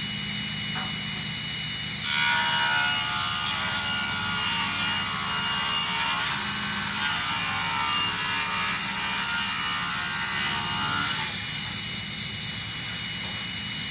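A table saw running, then ripping a board to width from about two seconds in. The cut is much louder and rougher, and it ends about eleven seconds in, when the blade spins free again with a steady hum.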